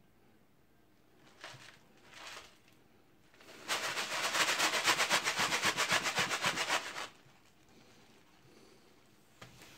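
Dry cereal flakes tipped from a cardboard box into a steel saucepan, rattling in with a fast, even patter for about three and a half seconds before stopping abruptly. Two short rustles of the box come first.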